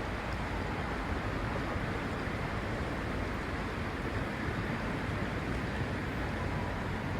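Steady rushing of creek water flowing over a riffle, an even hiss without breaks.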